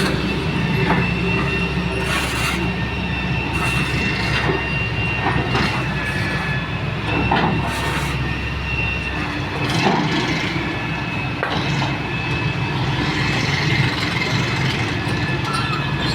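Heavy excavator working: its diesel engine runs steadily under a high, thin whine. Irregular metallic clanks and knocks come from the machine and its tracks or bucket.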